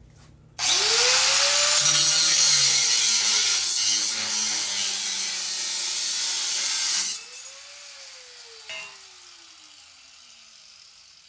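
Angle grinder starting up and cutting through a metal band for about six seconds, a loud rasping grind. It is then switched off and winds down with a slowly falling whine. A single click comes about two seconds after it stops.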